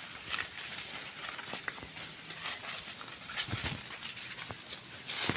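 Footsteps and rustling of leaves and undergrowth as someone walks through bushes, with scattered crackles of dry leaves and twigs underfoot, louder near the end.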